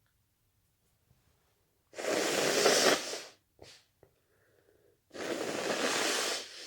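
A person's heavy, noisy breaths in the middle of a sneezing fit: two long breaths about three seconds apart, with a short sniff-like sound between them.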